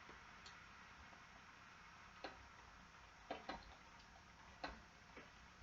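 Near silence broken by about five faint, irregular ticks.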